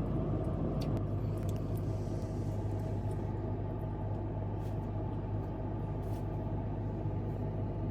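Car engine running, heard from inside the cabin as a steady low hum with a few faint clicks.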